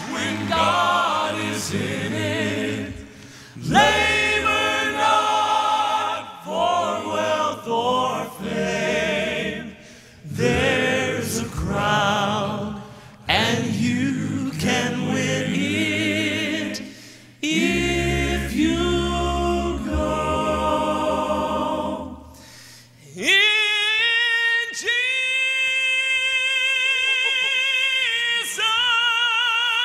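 Male gospel vocal quartet singing together in phrases with vibrato, then holding a long chord from about 23 seconds in.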